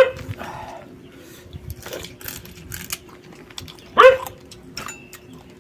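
A dog barking twice, two short barks about four seconds apart, with faint clicks and crunches between.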